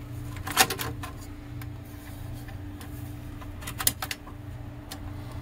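Scattered sharp clicks and light knocks of a cassette deck's front faceplate being worked back into place over its knobs, two of them louder, about half a second in and near four seconds, over a steady low hum.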